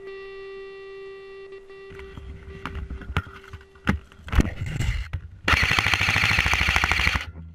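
Airsoft rifle firing a loud full-auto burst of rapid shots lasting about two seconds near the end, after a few scattered clicks and knocks. Background music fades out during the first two seconds.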